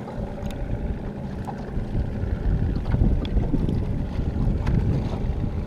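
Wind buffeting the microphone, a low rumble that builds after the first second, with a few faint clicks.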